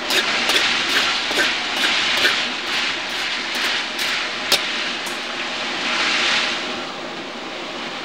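Food sizzling in a wok over a roaring gas wok burner, stir-fried with a metal ladle that clanks against the wok a little more than twice a second for the first few seconds. After that the sizzle and burner roar carry on steadily.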